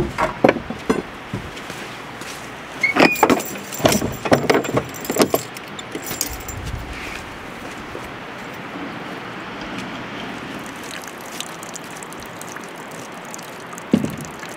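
Knocks and metallic clinks from objects being handled, in two clusters in the first five seconds or so. Then a steady outdoor background hiss, with a single thump near the end.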